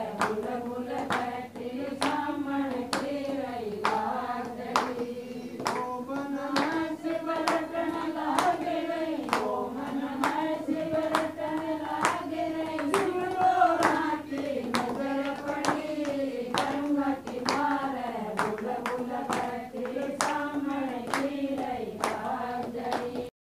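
A group of women singing a Hindi Shiva bhajan together in unison, clapping their hands in time about twice a second. The singing and clapping stop abruptly just before the end.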